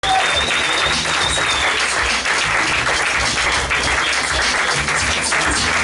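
Audience applauding, a dense steady patter of many hands clapping, with a thin high whistle-like tone over the first couple of seconds.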